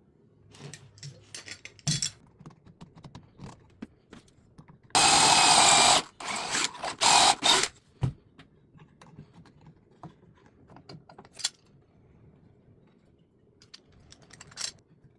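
Power drill running for about a second, then in several short bursts, boring dowel holes through the jig. Light clicks and knocks of wood and tools being handled come before and after.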